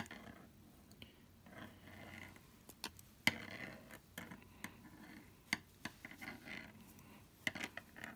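Metal double-pointed knitting needles clicking against each other as stitches are knitted in the round: light, irregular clicks, about a dozen, with soft rustling between them.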